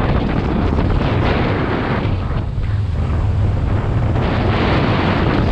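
Loud, steady rumbling noise of wind buffeting the microphone.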